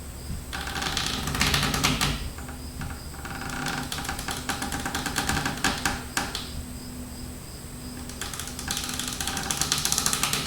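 Taut rope creaking under a hanging weight: three long creaks made of rapid crackling ticks, with short pauses between them as the load sways.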